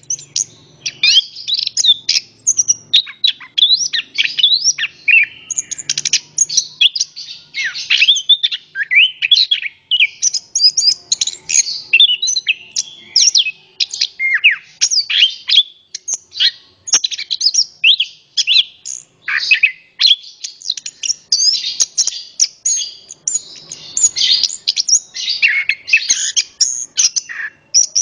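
Chestnut-capped thrush (anis kembang) singing its full song: a long, rapid, unbroken stream of varied high whistles, trills and chirps.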